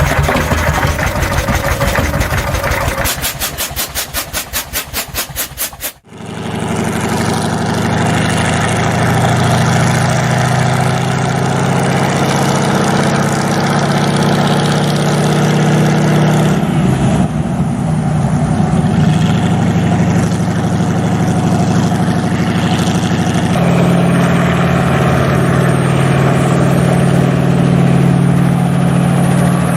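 Old engine running with a rhythmic beat that slows into slow, even pulses, then an abrupt cut to another engine running steadily, its note shifting twice.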